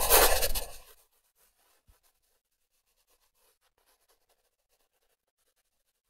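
A loud rushing whoosh sound effect of an animated logo reveal, fading away within about the first second, followed by near silence with a few faint crackles.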